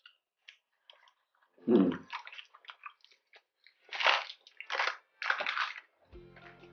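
Close-miked eating: a short hum about two seconds in, then biting and chewing of crisp food, with three loud crunches in the second half.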